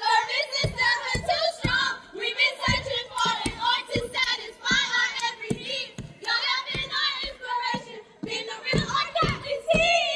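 Group of women chanting in unison in short rhythmic phrases, with sharp percussive hits of claps and stomps between the lines.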